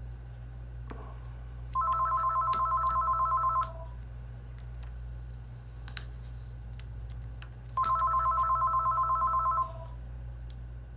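A phone ringing with a fast electronic trill: two rings, each about two seconds long, about four seconds apart. A sharp click falls between the rings.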